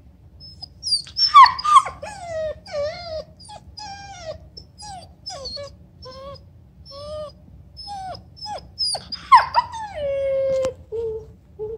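German shepherd puppy whining and crying: a run of short high whimpers that bend up and down in pitch, with louder yelping cries about a second in and again near nine seconds, and a longer drawn-out whine near the end.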